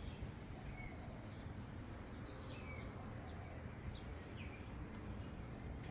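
Outdoor ambience: a steady low rumble with birds chirping, several short falling chirps spread through.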